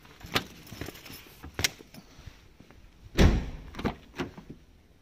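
A few sharp knocks from handling luggage at a car, then a heavy thud a little after three seconds in as a car door is shut, followed by two lighter knocks.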